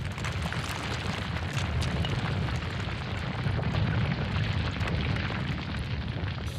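Rockfall: rocks and boulders tumbling and crashing down a steep rubble slope, a continuous deep rumble with many sharp clattering impacts.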